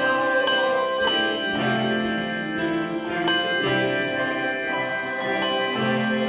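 Handbell choir ringing a piece: bells are struck one after another, their tones ringing on and overlapping into chords.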